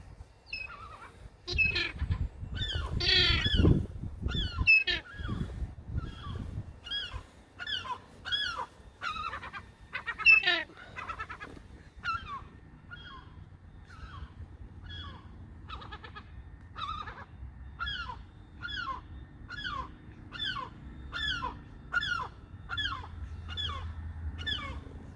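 A young bird calling over and over, each call a short high note sliding downward, about one and a half calls a second. Rustling and thumps of handling or movement are loudest in the first few seconds.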